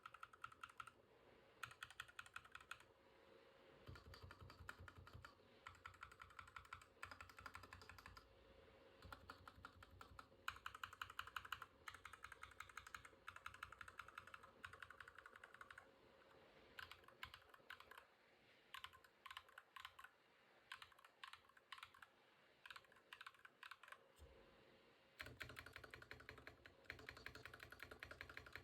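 Mechanical keyboard fitted with Akko V3 Cream Blue Pro tactile switches being typed on quietly, in runs of rapid keystrokes broken by short pauses.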